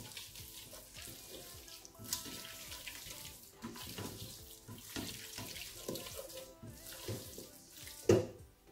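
Wooden spoon stirring shredded abacha coated in palm oil in a stainless steel pot: irregular wet mixing strokes with the spoon scraping the pot, and one sharp knock near the end.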